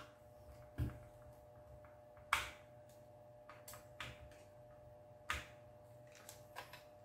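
Faint, scattered clicks and taps as the small heatsink screws are turned in by hand on the back of a graphics card's circuit board, with two sharper clicks about two and five seconds in, over a faint steady hum.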